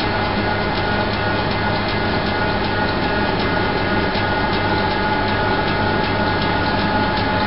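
Steady mechanical drone of train-depot machinery: a low hum with a held higher tone over it.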